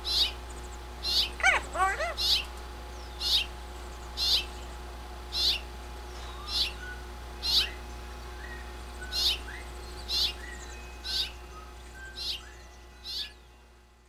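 Blue-fronted Amazon parrot giving short, high chirps about once a second, with a whistled call that slides up and down about a second and a half in. The calls fade out near the end.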